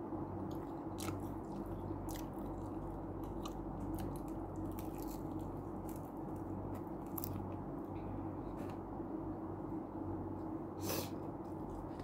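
A person chewing and biting crunchy fried food close to the microphone, with scattered crisp crunches and mouth clicks throughout and a sharper one near the end, over a steady low hum.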